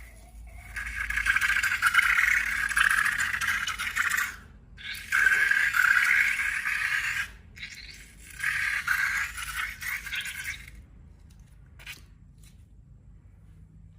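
Crackly scraping and rattling in three bursts of a few seconds each, followed by a single faint click.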